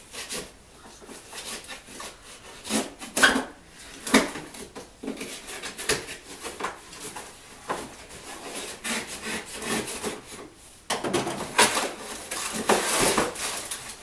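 A knife stabbing and sawing through a cardboard shipping box, with cardboard scraping and ripping. A few sharp knocks come about three and four seconds in, and the tearing grows louder and denser for the last few seconds.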